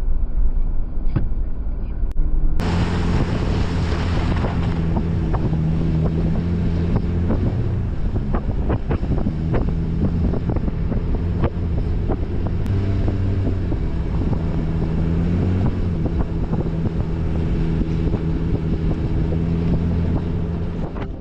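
Jeep's engine running steadily while driving, with road and wind noise on the microphone. About three seconds in the sound suddenly turns brighter, and through the middle there are many short, scattered clicks.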